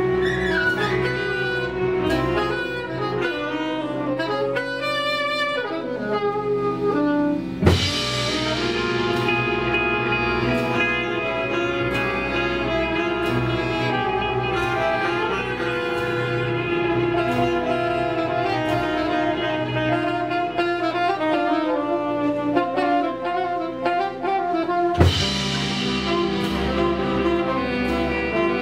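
Live ensemble music: saxophone and bowed strings holding layered, sustained tones over light percussion. Two sharp crashes, one about a quarter of the way in and one near the end.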